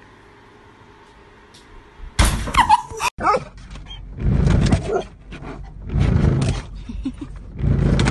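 A dog barking inside a car's cabin, in several loud bursts about a second apart, starting about two seconds in.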